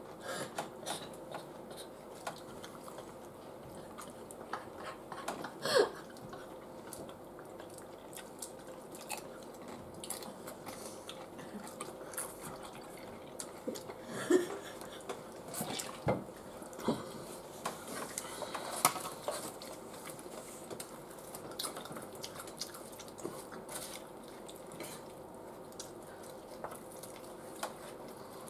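Forks and fingers scraping and clicking on a dark oven baking tray while people pick at nachos, with scattered light knocks and some chewing and crunching between them.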